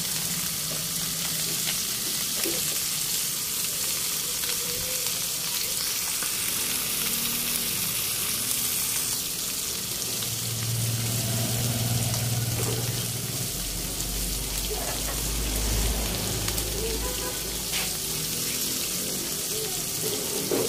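Whole round scad (galunggong) frying in shallow hot oil in a pan: a steady sizzle with a few small pops.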